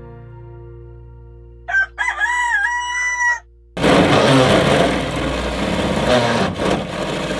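A rooster crows once, a bending call of about a second and a half. About four seconds in a drill starts boring a hole through the school bus's sheet-metal side panel, a loud rough grinding noise.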